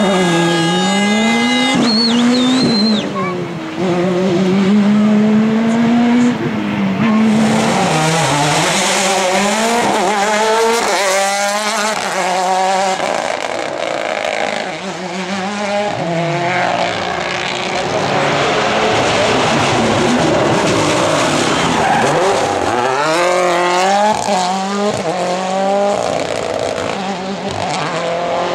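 Rally cars at full speed on a tarmac stage, the first a Škoda Fabia S2000: engines rev high and drop with each gear change and each lift for the corners, over the noise of the tyres on a dusty, gravel-strewn surface.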